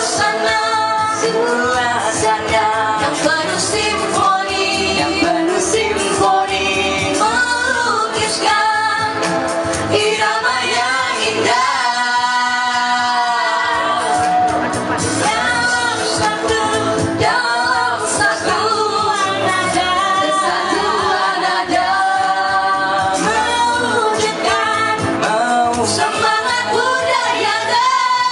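Group of five singers, a man and four women, singing a pop song together into microphones over a backing track with a steady beat.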